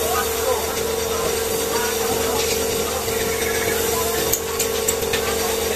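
Paint spray gun spraying with a steady hiss of compressed air, a steady tone running beneath it and a few light clicks in the second half.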